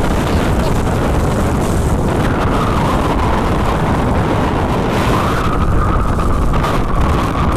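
Storm wind buffeting the microphone in a loud, steady rumble, with a faint wavering whine coming in about two seconds in.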